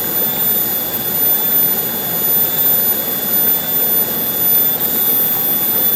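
Steady rush of flowing river water, with a few thin, steady high-pitched tones above it.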